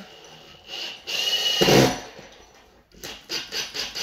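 Cordless drill driving a screw through a blind mounting bracket into a wooden window frame. A short burst comes about a second in, then the loudest whir. From about three seconds on the drill pulses evenly, four or five times a second, as the screw is run in snug.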